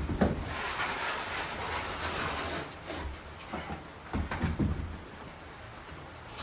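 A trowel scraping thinset mortar, a steady scrape for the first two seconds or so, then several knocks and short scrapes.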